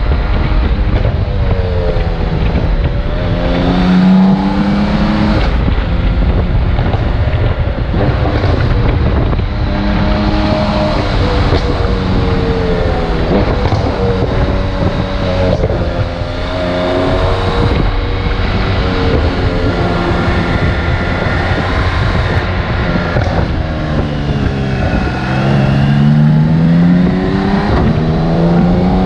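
BMW K1600GTL's inline six-cylinder engine under way, its pitch dropping and climbing several times as the throttle is eased off and opened again, with a strong climb near the end. Wind rush on the microphone runs underneath.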